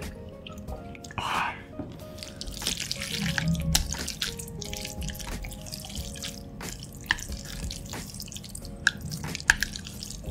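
Sauce-coated Chapagetti black-bean noodles being lifted and stirred with chopsticks: a string of small wet, sticky clicks and squelches, over soft background music.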